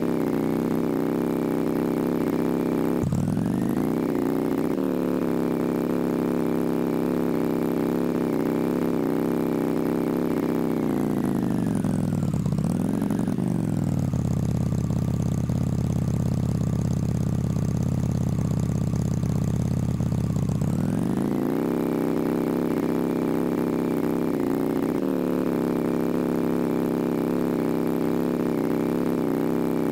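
An engine running steadily. Its pitch drops and recovers about three seconds in, sinks to a lower speed through the middle, and rises back up again after about twenty seconds.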